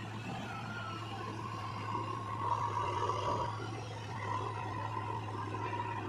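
JCB 3DX backhoe loader's diesel engine running steadily, with a whine that swells louder from about two to three and a half seconds in.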